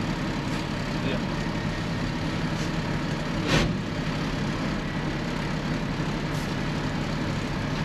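Steady running of a Peterbilt 379 semi truck's Caterpillar C15 inline-six diesel engine. A short burst of noise comes about three and a half seconds in.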